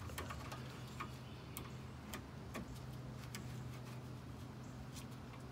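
Light, irregular clicks and taps of a rubber power steering hose and its hose clamp being handled and pushed onto a metal cooler line, over a steady low hum.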